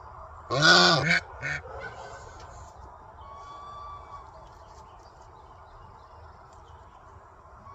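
Domestic goose honking: one loud call about half a second in, followed by a short call, then the goose falls silent.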